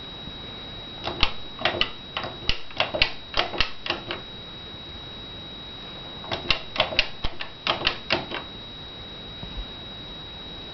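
Two runs of sharp, irregular clicks, about three to four a second: the first starts about a second in and lasts about three seconds, the second starts about six seconds in and lasts about two seconds.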